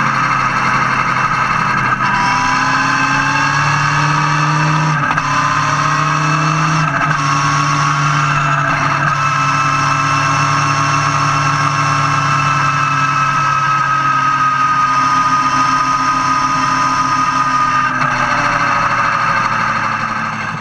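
Motorcycle engine running steadily at road speed, with wind and road noise; its pitch shifts up or down several times.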